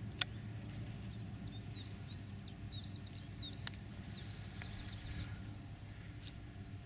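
Small songbirds chirping and twittering in quick high phrases over a steady low background hum, with a sharp click shortly after the start.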